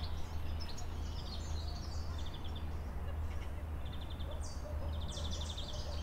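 Several small songbirds singing at once: warbling phrases and short chattering runs of quickly repeated high notes, from warblers. Under them runs a steady low background rumble.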